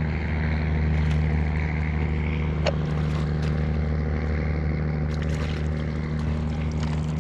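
Steady, unchanging low engine drone, a motorboat running on the water. A single sharp click about a third of the way in, with a few faint ticks later.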